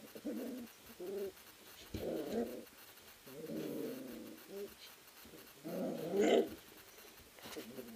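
Three-week-old eurohound puppies growling as they wrestle, in a string of short bursts, the loudest about six seconds in.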